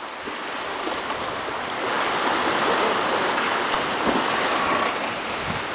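Water rushing past a sailing yacht's hull under way at sea, an even wash that grows louder about two seconds in.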